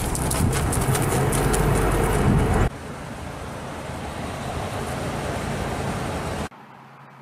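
Vehicle engine running with a steady low hum and rattling clicks, heard from inside the RV. A few seconds in it cuts off abruptly to a steady outdoor hiss, which drops suddenly to a quieter hiss with a faint hum near the end.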